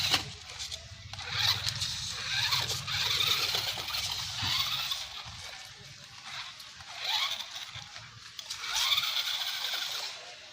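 Remote-control toy monster truck's electric motor whining, rising and falling in pitch as it speeds up and slows down, in repeated surges.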